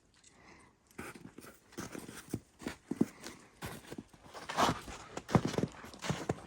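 Irregular knocks and scuffs, quiet at first and getting louder and busier in the last two seconds.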